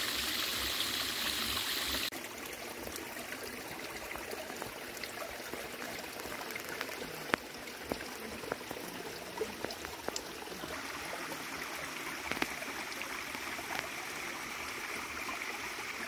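Small waterfall running low, trickling over a rock ledge into a shallow stony pool, a steady rush and splash of water. The rush drops a little about two seconds in and grows brighter again over the last few seconds, with a few faint ticks in between.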